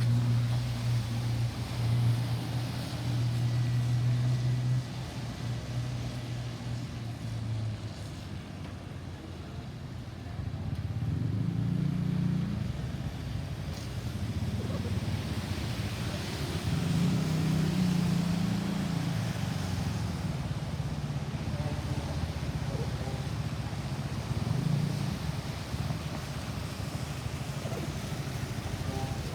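Road traffic: vehicle engines running and passing. A steady low engine hum fades out about seven seconds in, then engines swell and fade as vehicles go by.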